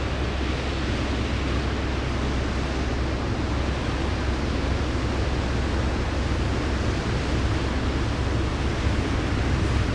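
Steady, even low rumble with a hiss over it from a large container ship passing close by on the canal.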